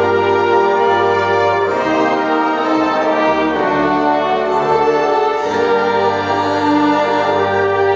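Music: slow, sustained harmonised chords with a brass-like sound, each held for a second or two before moving to the next.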